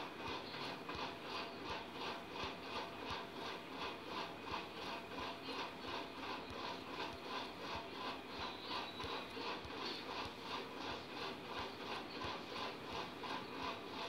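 A rhythmic rubbing or scraping noise, repeating evenly about three times a second.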